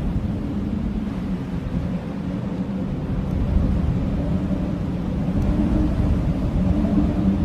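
Blizzard wind blowing in a steady low rumble, with faint wavering howling tones over it.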